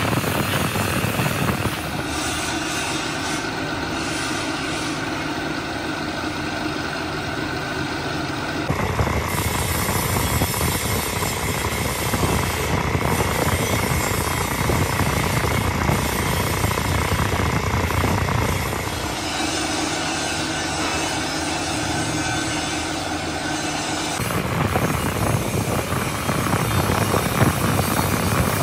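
Electric drill running steadily as its twist bit bores into a tractor engine block, the metal chips being cut away. At times a steady motor whine sits over the cutting noise, and the sound shifts abruptly a few times.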